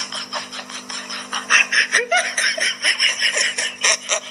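A person laughing hard in rapid, breathy snickers and giggles, over a steady low hum.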